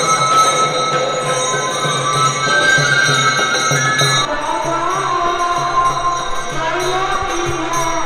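Music with a steady beat, held tones and a melody; the texture changes about four seconds in.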